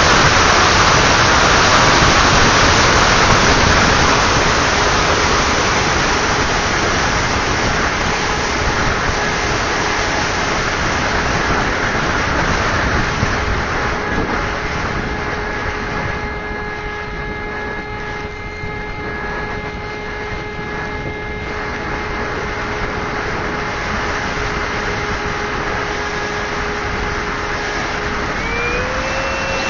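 Multiplex Twister electric RC plane in flight: loud wind rush with a steady motor-and-propeller whine under it. The whine glides up in pitch near the end.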